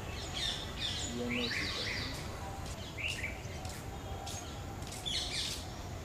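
Several birds chirping and chattering, short overlapping calls coming every second or so over a steady low background rumble.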